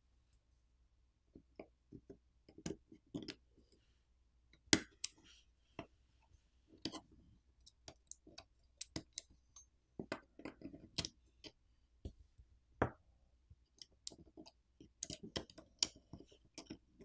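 Irregular small clicks and taps of a metal pry tool and fingertips working a smartphone's main board loose inside its plastic frame, starting about a second and a half in.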